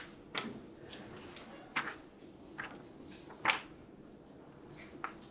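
Paper sheets of a case file being handled and turned: several brief rustles, the loudest about three and a half seconds in.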